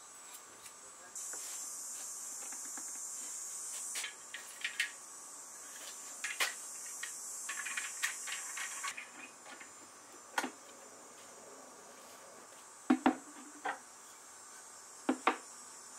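Cabinet glue-up: scattered light clicks and knocks as a wooden top panel, a bar clamp and wooden cauls are set in place, the sharpest pair of knocks about 13 seconds in. Under them runs a steady high hiss that stops for a while in the middle.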